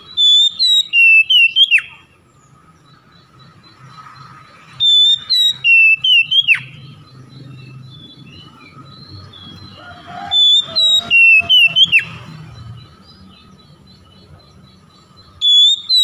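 Oriental magpie-robin (kacer) singing the same loud whistled phrase four times, about every five seconds. Each phrase holds a high clear whistle, then drops through quick warbled notes and ends in a sharp downward sweep.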